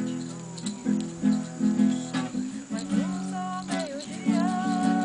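Acoustic guitar (violão) being strummed in a steady rhythm, its chords ringing between strokes.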